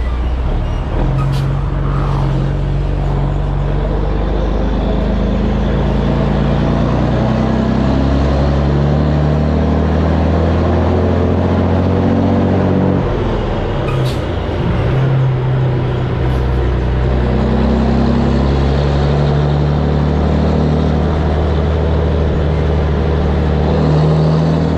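Volvo N12 truck's six-cylinder diesel engine running under way, its loud dual exhaust booming, heard from a seat outside the cab with wind rushing past. The engine note steps up and down in pitch and briefly breaks up about halfway through before settling back.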